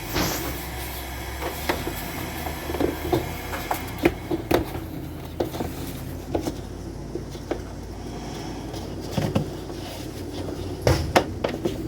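Irregular knocks and clicks of equipment being handled, over a steady low hum.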